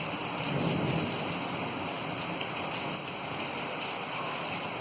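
Rain falling steadily, an even constant hiss.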